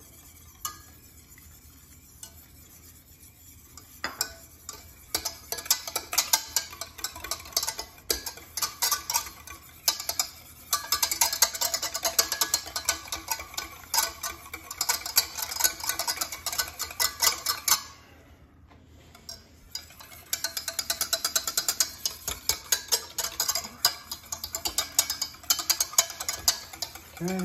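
Wire whisk beating egg yolk, oil and vinegar in a stainless steel saucepan, the wires clicking fast against the metal pan as the mayonnaise emulsion is worked by hand. Quiet for the first few seconds, the whisking starts about four seconds in, breaks off briefly about two-thirds of the way through, then resumes.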